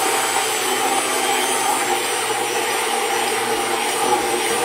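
Braun immersion hand blender running steadily with its head submerged, puréeing thick, chunky tomato marinara sauce in a pot to make it smooth.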